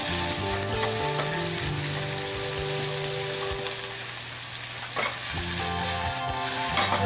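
Diced peppers, onion and turkey sausage sizzling in canola oil in a nonstick skillet, stirred with a spatula, with a few short scrapes and clatters of the spatula and pan; the vegetables are just beginning to wilt.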